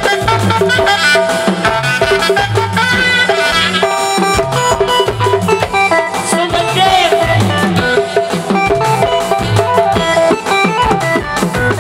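Live band music: an electronic keyboard playing a melody over a steady drum and percussion beat.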